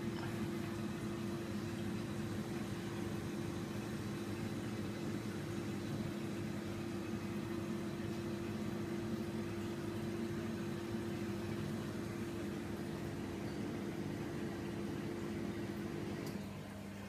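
Steady hum and whir of reef aquarium equipment, mainly pumps, over a faint wash of moving water. It drops in level and changes tone about sixteen seconds in.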